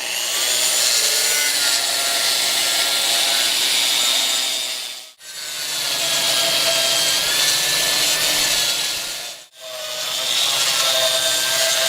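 Concrete grinder with a 125 mm diamond cup wheel and a 2200 W motor grinding concrete: a steady abrasive rasp over a slightly wavering motor whine. It breaks off twice in brief drops to silence, about five and nine and a half seconds in.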